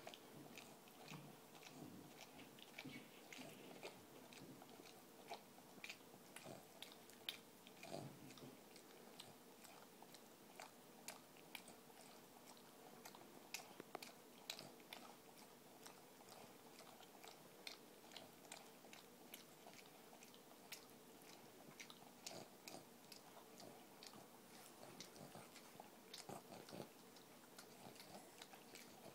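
Faint, irregular wet smacking and clicking of a Boston terrier licking in and around another Boston terrier's mouth, kept up without a break, with a few louder smacks.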